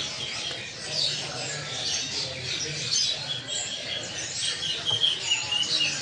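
Many small birds chirping and twittering at once, short overlapping high calls, with a few louder clear whistled notes around five seconds in.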